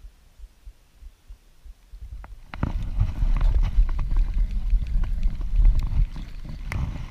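Handling noise on a body-worn camera: a loud low rumbling with scattered clicks and knocks, starting about two and a half seconds in and easing near the end, as the angler shifts in the inflatable boat and works a spinning rod.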